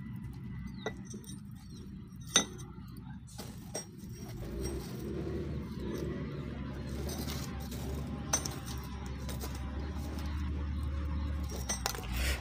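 Lumps of charcoal clinking and shifting as a steel knife blank is pushed into a charcoal forge fire, a few sharp glassy clinks over a steady low hum.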